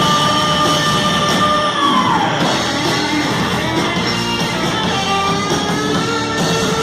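Heavy metal band playing loudly, guitar to the fore. A held high note slides down in pitch about two seconds in.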